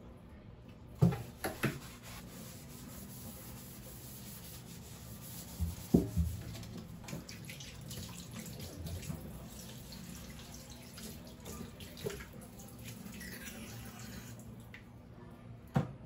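Dishes being washed in a stainless-steel kitchen sink: tap water runs steadily, and dishes clink and knock against the basin several times, most loudly about a second in and again near the middle.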